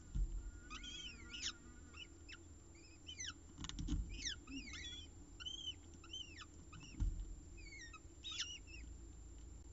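Downy peregrine falcon chicks begging with short, high, arching chirps, repeated in quick runs while they are fed. A few dull low thumps sound among them.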